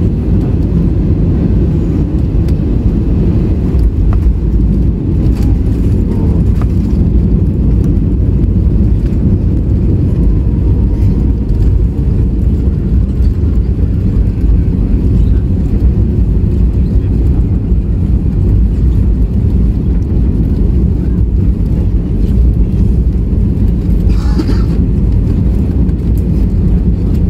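Cabin noise of an Airbus A320 landing and rolling out on the runway with its spoilers raised: a loud, steady low rumble. A brief higher sound stands out near the end.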